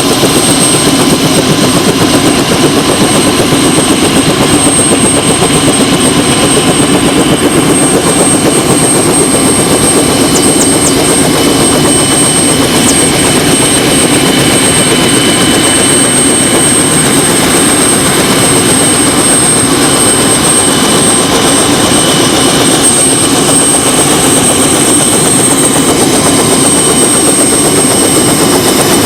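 Tour helicopter in flight: steady engine and rotor noise with a thin high whine held throughout.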